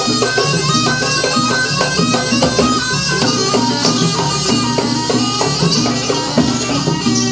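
Jaranan gamelan music: a reedy shawm melody played over drums and struck percussion with a steady beat.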